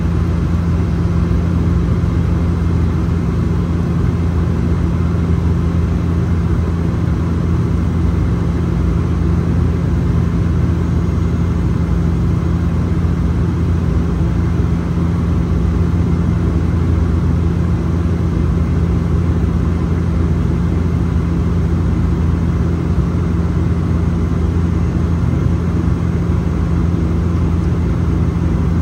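Steady in-flight cabin drone of a Bombardier Dash 8 Q400 (Q402), whose twin Pratt & Whitney Canada PW150A turboprops give a constant low propeller hum over rushing airflow.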